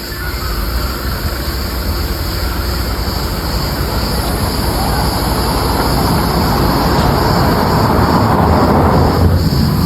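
Firefighting aircraft engine noise, growing steadily louder for about nine seconds as it comes nearer, then cut off suddenly at the end.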